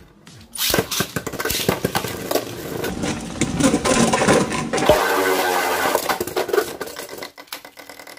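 Beyblade Burst spinning tops launched into a plastic stadium and battling: a sudden loud start about half a second in, then rapid clattering as the tops knock against each other and the stadium wall. After about five seconds it settles into a steadier whirring spin with a few more knocks before cutting off.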